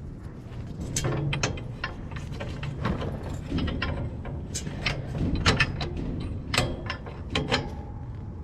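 Irregular metal clicks and clanks as the ATV plow's mounting bracket and pins are worked into place, over a low steady hum.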